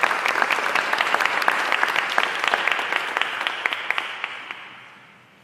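Audience applauding, many hands clapping together; the clapping thins out and dies away over the last second and a half.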